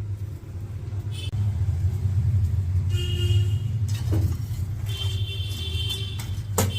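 Newborn kittens mewing in thin, high cries, twice, over a steady low rumble, with a sharp click near the end.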